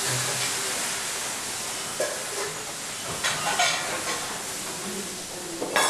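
Commercial kitchen at work: a steady hiss of cooking at the stoves, with a few metal clinks of pots and utensils, around two seconds in, again a little later, and near the end.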